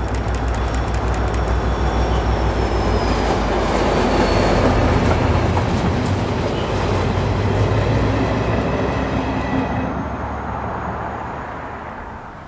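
Irish Rail 071 class diesel locomotive passing close by at the head of a short engineering train, its EMD two-stroke V12 diesel drumming low. The wagons' wheels follow, clattering over the rail joints with a thin high squeal. The sound fades away near the end.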